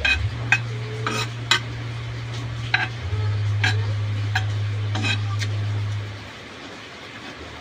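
Spoon clinking and scraping against a metal kawali (frying pan) during eating, about eight sharp clinks, over a steady low hum that drops away about six seconds in.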